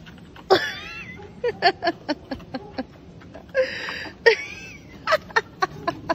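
A person laughing in rapid short bursts, beginning with a high, wavering squeal about half a second in.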